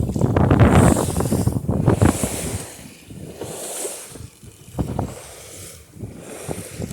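Wind buffeting the microphone, with chop splashing and rushing against the hull of a Banks dory sailing upwind. It comes in gusts, heaviest in the first couple of seconds, with a hissing swoosh of water every second or two.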